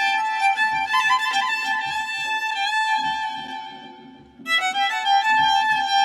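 Background music led by a violin playing sustained melody notes with vibrato over a soft pulsing beat; it fades out about four seconds in and starts again half a second later.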